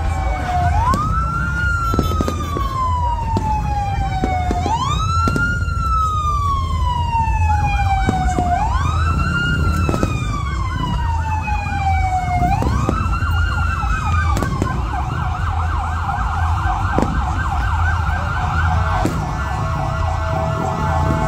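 Emergency vehicle siren sounding a slow wail, each cycle rising quickly and falling slowly over about four seconds, four times over, then switching to a fast yelp about two-thirds of the way through. Scattered sharp firework bangs sound underneath.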